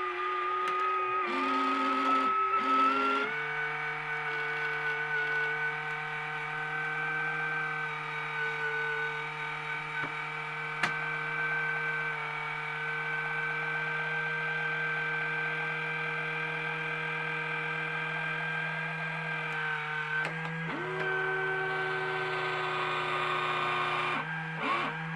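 Omnibot 2000 robot's small electric gear motors whirring steadily. The pitch changes in steps in the first few seconds and again twice near the end as the motors shift speed or stop and start.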